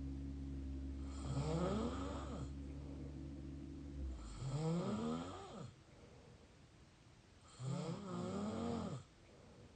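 Mouth snoring: three rasping snores about three seconds apart, each with a pitch that bends up and down. A low steady hum underneath stops about four seconds in.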